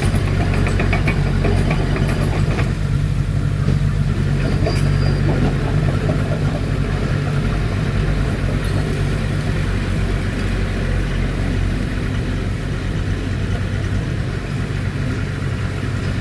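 Heavy diesel engine running steadily at a low, even speed, with a rapid light clatter in the first couple of seconds.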